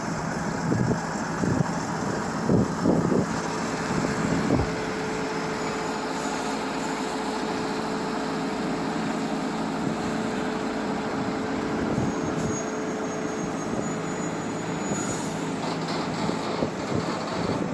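Highway traffic noise from passing trucks, with a steady hum running through most of it. Wind buffets the microphone with low thumps in the first few seconds.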